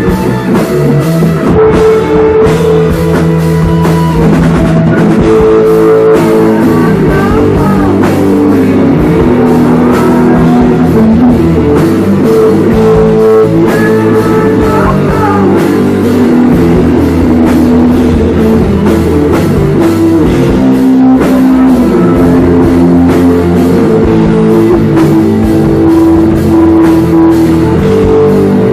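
Live rock band playing loud, with electric guitar and drum kit; a voice sings into the microphone in places.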